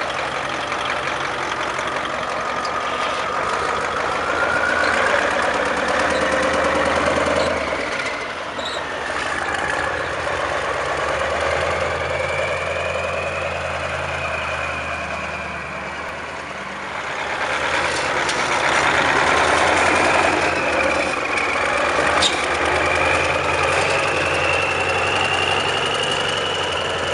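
CAT 3208 V8 diesel with twin turbochargers and a Detroit 6V91 blower, driving off under load: a low diesel rumble beneath a high whine from the turbos and blower that rises and falls with the throttle. It swells twice, the second time longest, with the whine climbing steadily toward the end.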